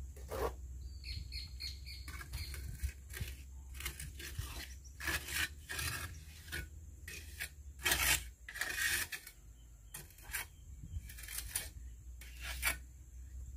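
Mason's trowel scraping mortar onto and off clay bricks and the mortar tray, in a run of short, irregular scrapes and taps. Birds chirp faintly in the first few seconds.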